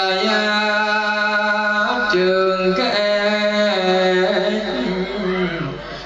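A man's voice chanting in a slow sung melody, holding long notes and stepping to a new pitch every second or two.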